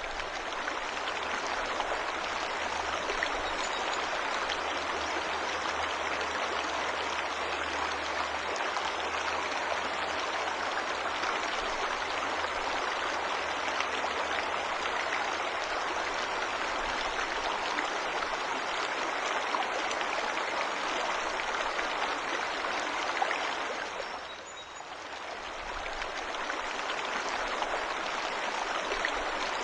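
Waterfall rushing in a steady, even wash of water noise, briefly dipping and swelling back about three-quarters of the way through.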